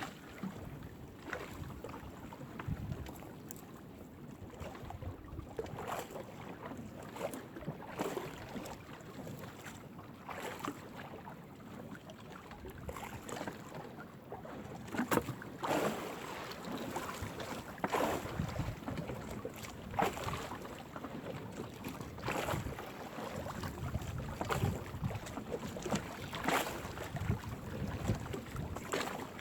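Blue swimming crab gill net being hauled by hand into a small boat: irregular splashes and knocks as the wet net and its catch come over the side, with wind on the microphone.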